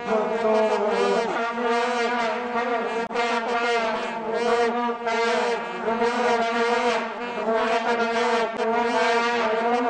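Vuvuzelas blown together in a continuous buzzing drone: one steady low tone with several other horns wavering in pitch over it.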